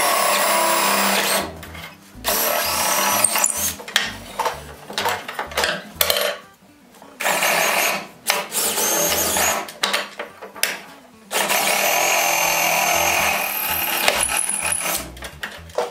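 Electric drill boring holes down through wooden floorboards, in about four runs of a few seconds each with short pauses and knocks between. The motor's whine shifts up and down in pitch as the bit cuts.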